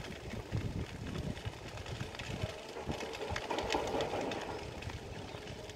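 Dry-brush bush fire burning: scattered crackles and pops of burning dry sticks over a low, uneven rumble, swelling a little around the middle.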